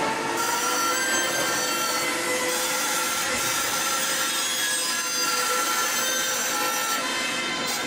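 Spiral blade cold rolling machine running as it rolls steel strip into screw flight. The sound is a steady rasping noise with a few thin, steady high tones running through it.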